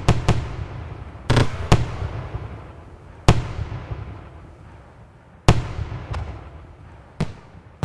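Fireworks exploding: about eight sharp bangs at irregular intervals, a few close together, each trailing off in a long rolling echo.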